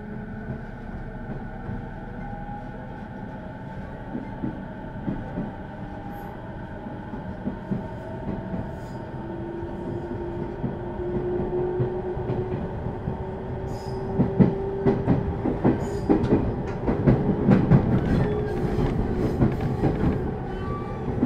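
JR East 209 series 2100-subseries electric train heard from inside the passenger car as it picks up speed. A motor whine rises slowly in pitch while the wheel clatter over the rail joints grows louder and denser.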